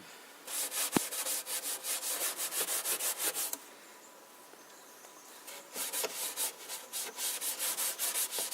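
Fine 00 steel wool scrubbing back and forth over old shellacked wood, about three quick strokes a second, working boiled linseed oil into the timber. The strokes stop for about two seconds midway, then start again. There is one sharp click about a second in.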